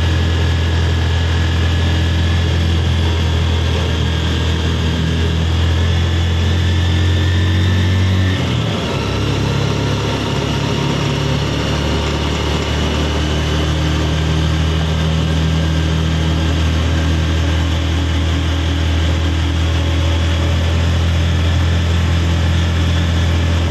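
A vehicle's engine running steadily under load on an uphill climb, heard from inside the cab as a loud low hum. About eight seconds in the hum dips and breaks briefly, then settles back to a steady drone.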